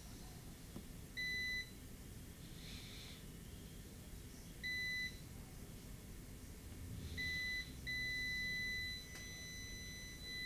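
Digital multimeter in diode mode beeping at a steady high pitch as its probe touches low-reading points on a phone logic board. There are three short beeps spread through the first seven seconds, then a longer beep of about a second, and another starting at the very end. The near-zero readings behind the beeps come from capacitors still charging, not a short.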